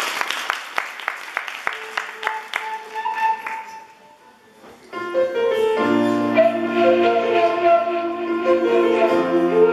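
Scattered applause dying away over the first few seconds. About five seconds in, a piano and a flute begin a slow introduction together, playing held notes.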